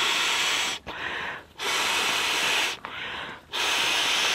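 A person blowing by mouth into the valve of an inflatable backpacking sleeping pad. Three long, loud breaths of air rush into the valve, each about a second long, with a quieter, shorter breath drawn between them.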